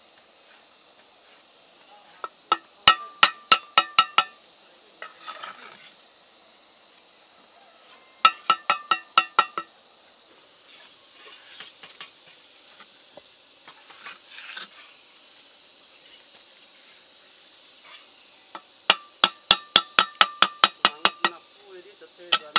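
Hammer blows on metal, each with a clear ringing note, in three runs of quick strikes at about four a second.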